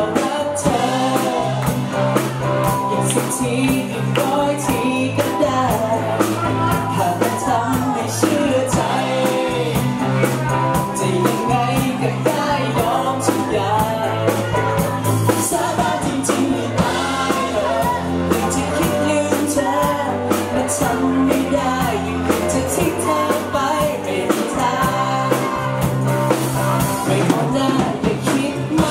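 A live band playing a Thai pop-rock song: a man singing over electric guitar, bass and keyboard, with a steady beat.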